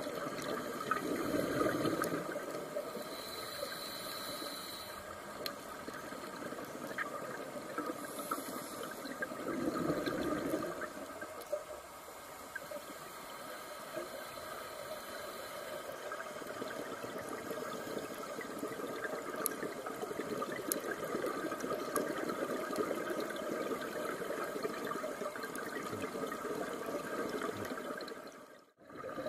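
Underwater sound of a scuba dive: a steady watery hiss with louder gurgling surges of a diver's exhaled bubbles from a regulator, one about a second in and another about ten seconds in. The sound drops out briefly near the end.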